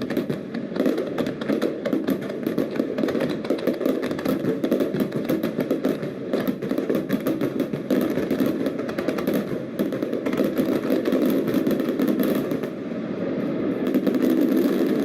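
Fireworks going off in a dense, rapid run of bangs and crackles, many a second without a break.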